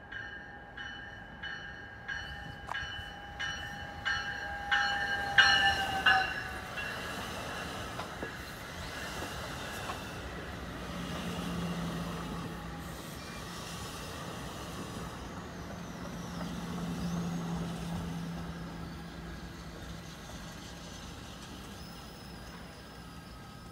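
A New Jersey Transit train passes at speed. Its bell rings steadily, about one and a half strokes a second, and grows louder, then drops in pitch and stops about six seconds in as the head end goes by. The double-deck Multilevel coaches then rumble past, with a low hum that swells twice.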